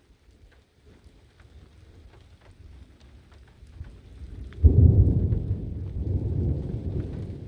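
Thunder during a thunderstorm: after a few seconds of light rain ticking, a sudden loud low rumble breaks out about four and a half seconds in and rolls on, slowly fading.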